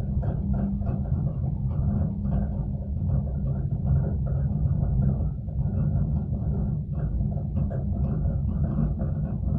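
Steady low rumble inside a moving ropeway gondola cabin as it rides along the cable, with faint irregular ticks and rattles.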